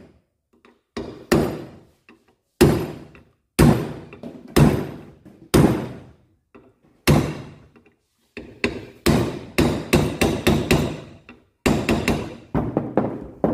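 Hammer blows driving new ball bearings into a motorcycle engine's crankcase, each strike ringing briefly. The blows come about a second apart, then in a quicker run of taps near the end as a bearing is seated.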